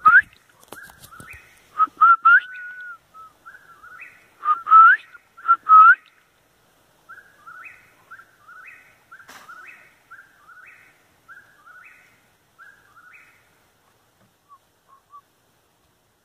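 Eastern whip-poor-will singing its repeated three-note 'whip-poor-will' phrase, about once a second, until roughly thirteen seconds in. In the first six seconds several much louder, closer rising whistles stand out over the song.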